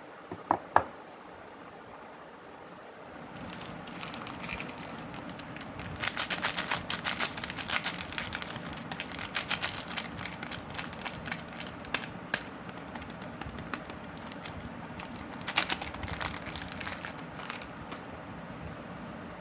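Dry soap being crushed and crumbled: a dense run of fine, rapid crackles and crunches that comes in two spells, the longer one in the middle and a shorter one near the end, after two sharp clicks at the start.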